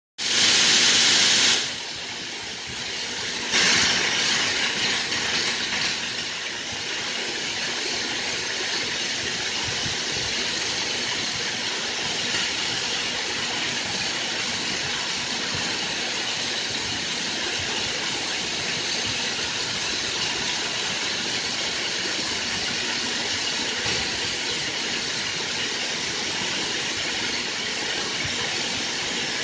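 Steady machinery noise and hiss of a 3D-printer filament extrusion line. A louder rush of hiss comes in the first second and a half, and again about four seconds in before settling back to the steady level.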